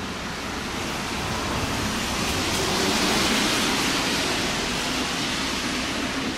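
Tyres hissing on a wet street as a vehicle passes: an even rushing noise that swells to a peak about halfway through and eases off toward the end.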